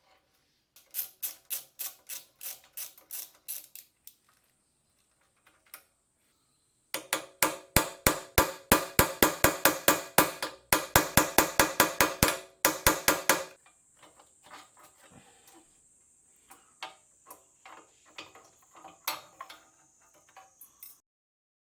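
Rapid, evenly spaced metallic clicking from hand-tool work, about five clicks a second, in two runs, the second longer and louder, followed by fainter scattered clicks.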